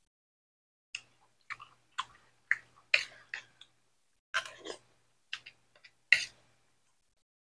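Close-up eating sounds: chewing and lip-smacking on cooked mangrove clam meat, a string of short sounds about two a second that stop after about six seconds.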